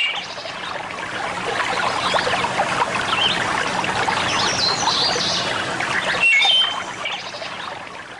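Running water with small birds chirping over it, fading out near the end.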